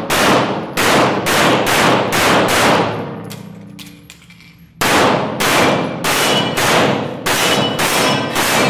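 Semi-automatic pistol firing two rapid strings of shots, about two a second, with reverberation off the concrete walls of an indoor range. A pause of nearly two seconds separates the strings, and faint metallic pings ring between shots.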